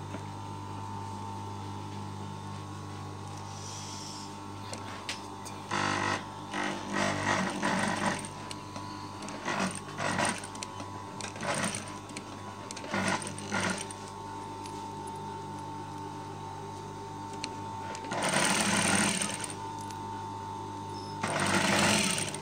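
Industrial sewing machine stitching a zipper tape onto thick pile fabric. Its motor hums steadily, and short runs of stitching start and stop several times, with two longer runs near the end.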